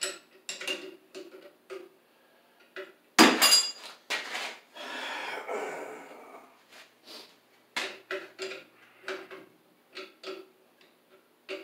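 Metal hand tools and pump fittings clinking and knocking as a boiler circulating pump is fitted to its pipe flanges: a string of short clinks, one loud knock about three seconds in, then a noisier stretch of about a second and a half.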